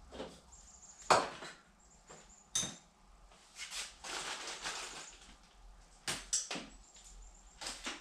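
Hand tools and parts being handled on a workbench: a few sharp knocks and clacks, the loudest a little over a second in, with a stretch of rustling and scraping in the middle.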